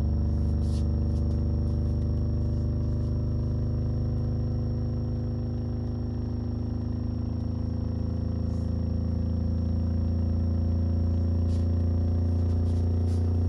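Digital Designs 610E 10-inch subwoofer playing in open air a slow sine sweep between 20 and 30 Hz: a deep, steady hum with overtones, its pitch gliding slowly. The level dips slightly about halfway through and then comes back up. The driver makes no mechanical noise.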